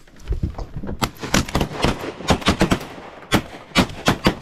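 A volley of shotgun fire from several duck hunters: about a dozen sharp shots in quick, uneven succession, starting about a second in and running for some three seconds.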